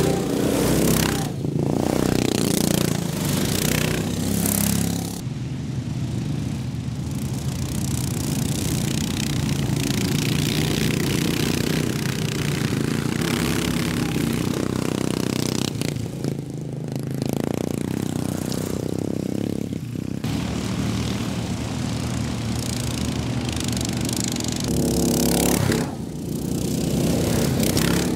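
Racing lawn mowers' engines running hard around the track, several machines passing close by one after another, their engine notes swelling and fading over a continuous engine drone.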